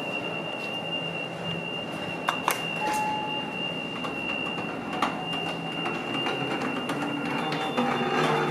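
A steady high-pitched alarm tone sounds without a break in the subway station elevator. A few sharp clicks come about two and a half seconds in and again about five seconds in, and a short lower beep about three seconds in.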